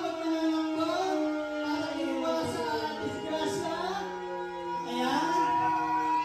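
Music with singing: a melody of sustained, gliding notes.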